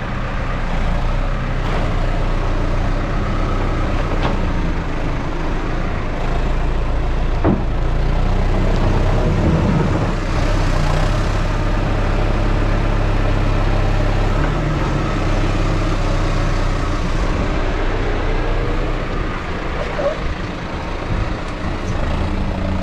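New Holland T5050 tractor's four-cylinder diesel engine running steadily at working revs while its front-loader silage grab digs into maize silage.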